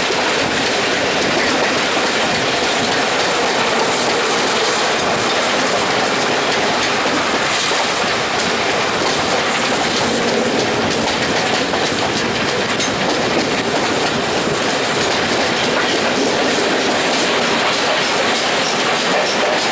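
Steam-hauled passenger train of GWR Swithland Hall No. 6988 running along the line: a steady, loud rush of wheel-on-rail noise.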